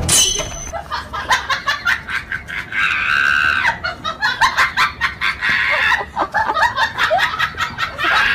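People laughing in quick repeated bursts, with a high shriek about three seconds in and again around six seconds.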